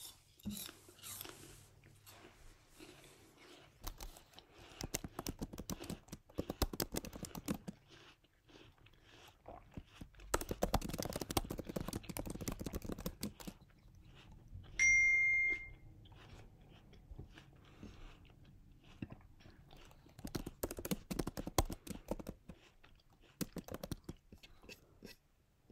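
Computer keyboard typing in irregular bursts of quick key clicks with pauses between, and a short electronic notification ding about 15 seconds in. A breath is blown out near the start.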